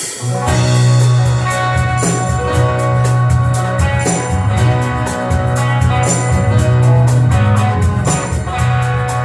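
A live band starts playing all at once: a heavy, steady bass line under a quick, even beat of cymbal ticks, about four a second, with guitar on top.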